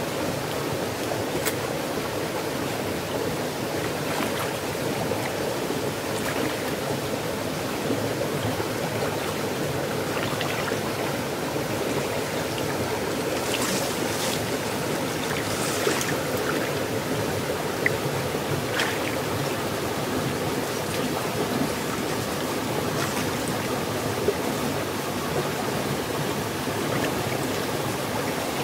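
Shallow muddy stream running with a steady rush of flowing water. A few brief sharper splashes stand out over it, around halfway through and again a few seconds later, from someone moving in the water.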